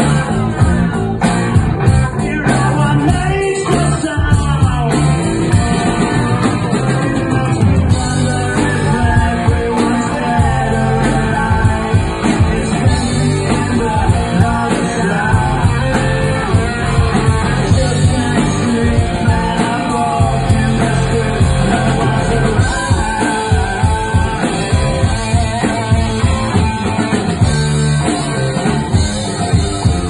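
Live rock band playing at full volume: electric guitar, bass guitar and a Gretsch drum kit keeping a steady driving beat.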